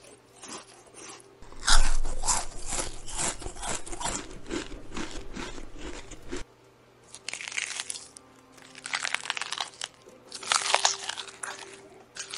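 Rabbit chewing a raw cabbage leaf: quick, crisp crunches several times a second. A long run of chewing stops abruptly about six seconds in, then comes again in shorter bursts with pauses between.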